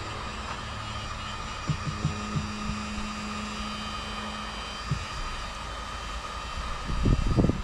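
Small electric water pump on a boat humming steadily, cutting off about two-thirds through. There are a few light knocks, then louder bumps and handling noise near the end.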